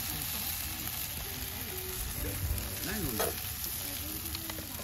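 Edamame pods sizzling steadily in a skillet over a wood fire.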